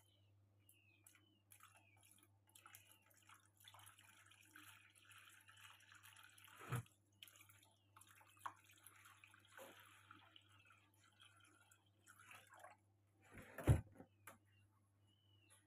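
Water poured from a plastic jug trickles and drips into a shallow plastic tray. There is a knock about halfway through and a louder one near the end.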